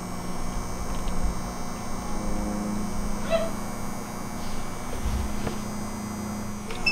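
A short, high-pitched animal cry about three seconds in, over a steady low hum.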